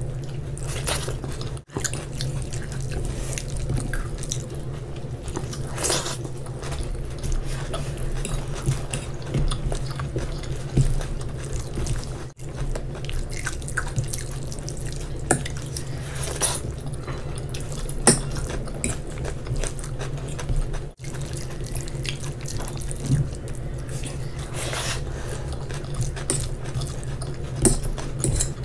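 Close-up wet eating sounds: mouths chewing and smacking soft, saucy rice and noodles, and fingers squishing food, heard as many scattered small clicks over a steady low hum. The sound cuts out briefly three times.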